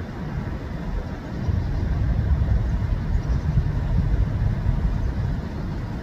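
Low, steady rumble of a jet airliner passing overhead, growing a little louder about a second and a half in.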